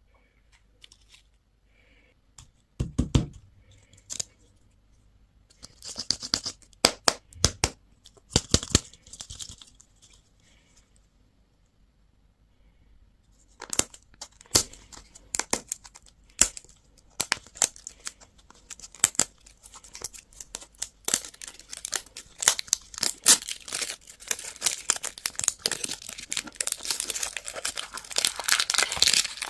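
Candy wrappers being torn open and crinkled by hand, in short crackling spells at first, then dense and almost continuous in the second half. A single low thump comes about three seconds in.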